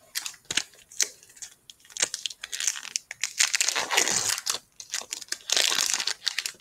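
Foil wrapper of a Pokémon trading card booster pack crinkling and tearing as it is pulled open by hand, in quick sharp crackles that grow denser and louder from about three seconds in.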